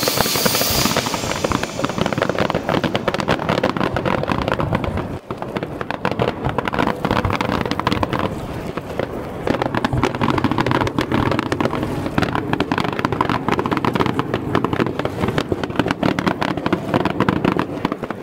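Fireworks going off in quick succession: a continuous run of bangs and crackling with hardly a pause, dipping briefly about five seconds in.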